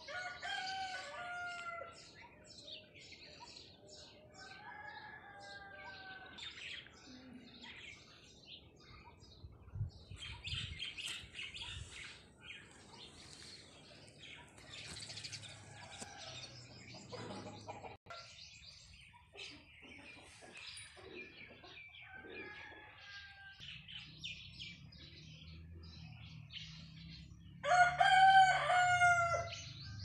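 Birds calling: many short chirps throughout, with several longer pitched calls, the loudest about two seconds long near the end.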